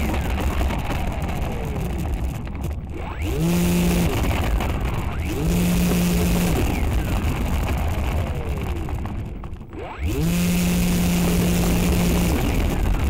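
FPV aircraft's electric motors and propellers whirring over a steady hiss, their pitch rising and falling with throttle. The sound dips briefly twice, and a steady low hum holds for about two seconds near the end.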